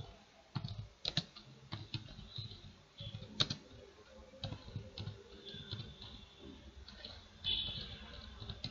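Computer keyboard being typed on: irregular key clicks as a command is entered.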